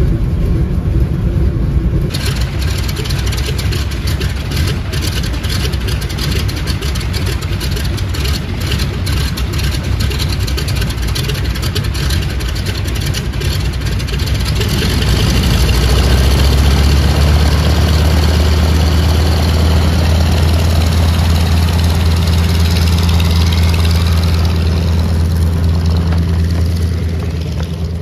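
1928 Ford Tri-Motor 5-AT-B's nine-cylinder Pratt & Whitney Wasp radial engines running with a dense, crackling sound. About halfway through it grows louder and settles into a steadier deep drone.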